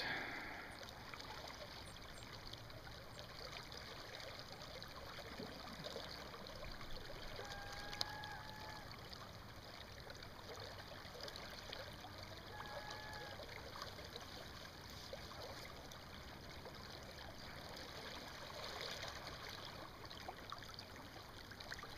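Faint steady rush of river water flowing past. Two short high whistles sound about eight and thirteen seconds in.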